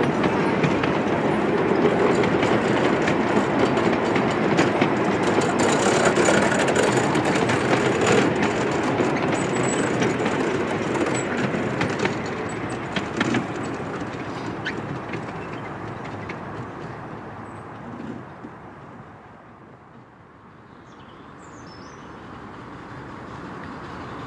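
Miniature-railway train rolling away along the track, its carriage wheels rumbling with scattered clicks over the rail joints. The sound fades steadily as the train draws away, growing faint about twenty seconds in.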